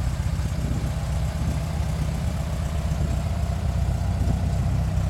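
1600 cc air-cooled Volkswagen flat-four engine idling steadily.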